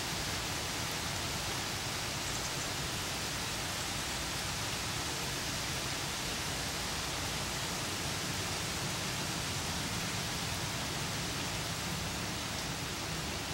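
Steady rain from an approaching thunderstorm, an even hiss with no change in level.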